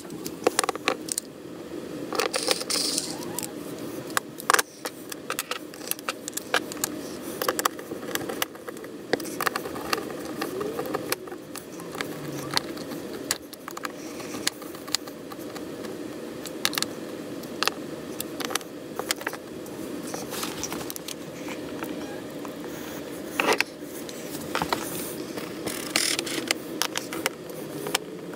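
Screwdriver driving screws into the plastic wheel housing of a Pelican 1650 case: irregular small clicks, rattles and scrapes of metal tool and screws on hard plastic.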